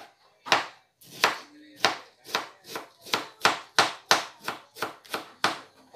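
Kitchen knife slicing peeled bamboo shoot on a cutting board: a steady run of knocks as each cut strikes the board, starting about half a second in and settling at about four a second.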